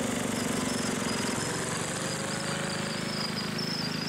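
Small engines of vintage Wheel Horse garden tractors running steadily as they drive past in a line: a rapid, even chugging.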